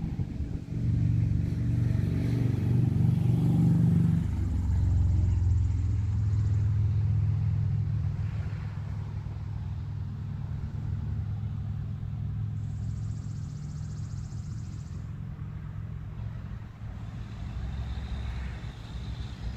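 Engine of a motor vehicle running close by, with a steady low drone that is loudest in the first few seconds. Its pitch drops about four seconds in, and it then slowly fades.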